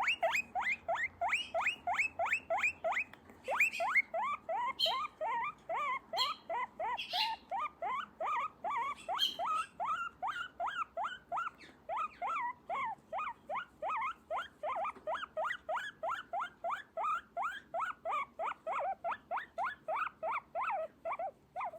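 Small pet squeaking in a rapid, steady series of short squeaks, about three to four a second, while its back is massaged.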